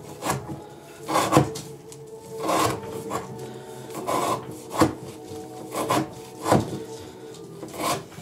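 Knife blade in Elmax steel slicing through rope again and again, one cut about every second and a half. Each cut is a short rasp ending in a sharp knock. These are the repeated cuts of a rope-cutting edge-retention test.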